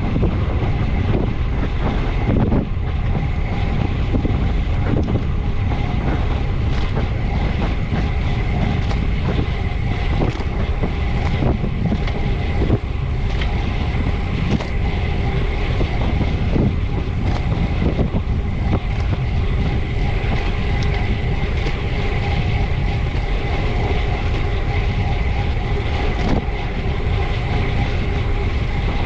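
Wind buffeting the microphone of a camera mounted low on a road bicycle ridden at full effort, with a steady hum of tyres and drivetrain running underneath and small scattered ticks.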